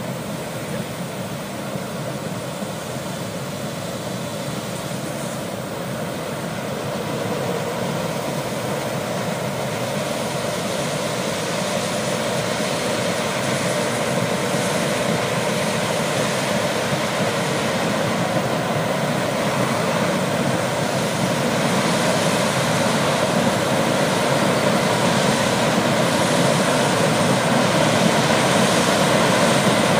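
Combine harvester running as it harvests dry corn, a steady engine and machinery drone that grows louder as it comes closer, with the tractor pulling the grain cart running alongside.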